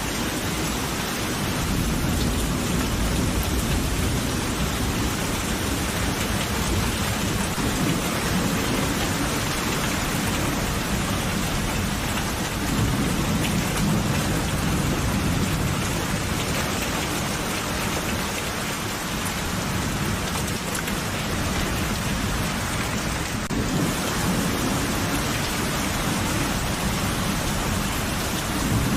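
Steady heavy rain falling, with low rolling thunder rumbles that swell and fade a few times underneath it.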